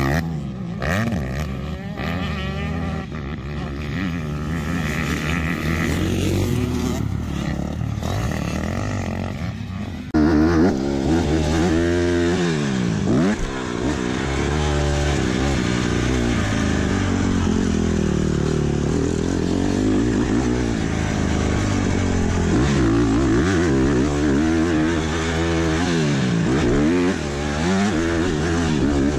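Dirt bike engine running loudly, with a sudden change about ten seconds in; after that it revs again and again, its pitch climbing and falling as the throttle is worked on and off.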